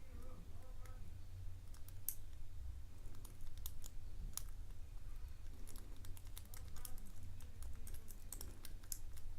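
Lock pick and tension tool working inside a pinned padlock: irregular small metallic clicks and ticks as the pins are lifted, over a low steady hum. It is picking that, the picker says, seems to be just making noise rather than setting pins.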